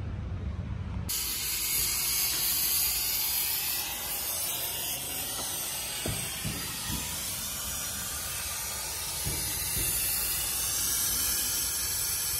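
A steady hiss from a workshop tool, starting abruptly about a second in and running on, with a few light knocks near the middle.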